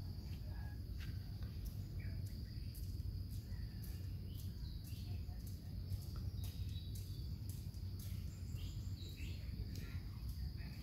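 Outdoor ambience: a steady high insect drone over a low rumble, with faint scattered bird chirps and small clicks.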